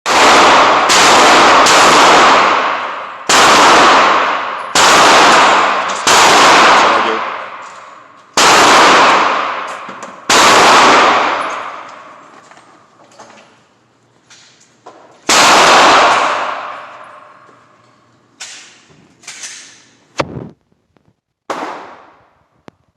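Gunshots at a shooting range: about nine loud shots at irregular intervals over the first sixteen seconds, each ringing on and dying away over a second or more. A few fainter shots follow near the end.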